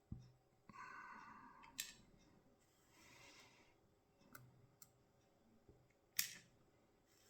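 Faint small metal clicks and scrapes from a tubular hex-core lock being picked pin by pin. There is a scrape about a second in, and the sharpest click comes about six seconds in.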